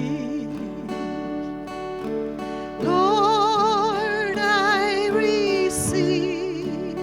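Gospel worship song: acoustic guitar accompaniment, and from about three seconds in a singer holds long notes with a strong vibrato.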